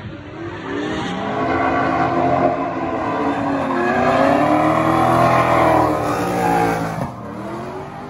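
Audi V8 engine in a BMW E30 revving hard through a drift, its pitch swinging up and down with the throttle, over tyres screeching. It is loudest in the middle and falls away suddenly about seven seconds in.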